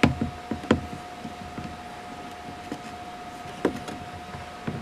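Scattered light clicks and taps of plastic parts being handled, a few near the start, one around the middle and one near the end, over a faint steady hum.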